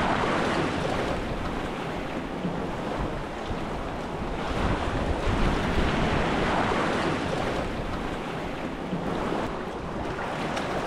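Sea surf washing on the shore, with wind buffeting the microphone; the rushing noise swells louder about halfway through.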